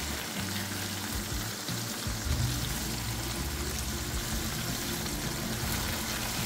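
Browned ground chuck sizzling steadily in a skillet while a paper towel is dabbed in the pooled grease, over soft background music with a low, stepping bass line.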